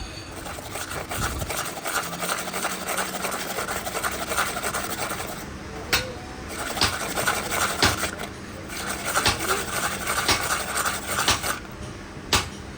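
Steady rasping, rubbing metalwork noise. It breaks off briefly twice, near the middle and a little later, and is marked by a few sharp clicks.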